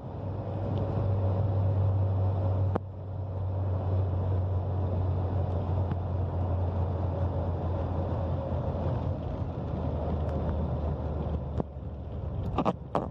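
Steady low drone of engine and road noise inside a 1998 Fiat Uno driving on the highway. The drone eases near the end, where a few sharp clicks sound.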